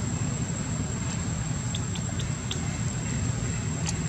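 Steady low rumble of outdoor background noise, with a constant high-pitched whine and a few light ticks around the middle.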